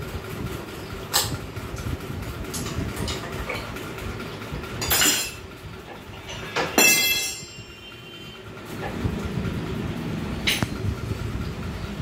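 Metal hand tools clinking against a motorcycle engine's metal parts: scattered sharp clinks, the loudest about five and seven seconds in with a brief metallic ring. A steady low rumble runs underneath.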